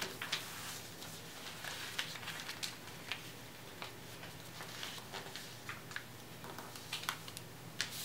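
Paper being folded and creased by hand on a wooden tabletop: scattered, irregular soft taps, rustles and scrapes of paper and fingertips against the table, over a faint steady low hum.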